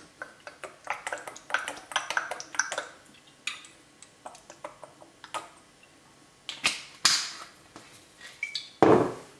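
Olive oil poured from a glass bottle into a ceramic bowl of herbs and garlic, with light clinks and ticks of glass on ceramic, followed by a few louder knocks and rustles as the bottle is set down and handled, the loudest near the end.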